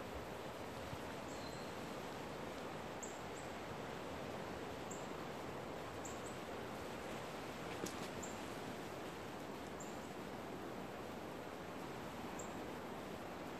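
Steady rushing outdoor background noise in pine woods, with brief high-pitched bird chirps every second or two.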